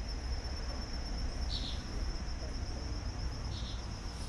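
Steady high-pitched insect chorus, with a short chirp twice, over a low rumble.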